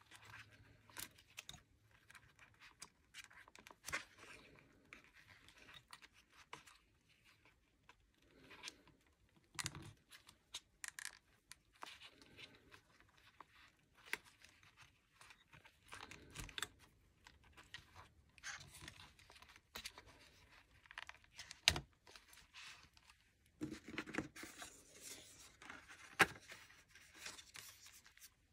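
Plastic budget envelopes and paper sheets rustling and crinkling as they are worked onto a metal ring binder, with scattered small clicks against the rings. A sharp click stands out a little after the middle.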